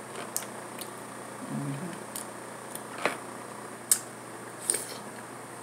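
A person eating with her fingers: scattered sharp clicks and smacks of mouth and fingers on food, the loudest a little before four seconds in. There is a short hummed 'mm' about a second and a half in.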